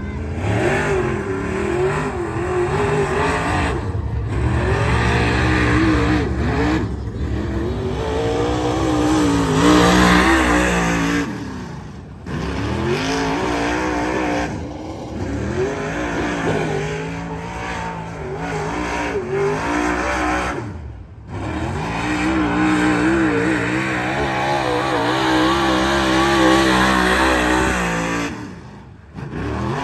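Dirt-track modified race car's V8 engine lapping the track, its pitch rising and falling over and over as it accelerates and lifts. The sound drops away briefly three times.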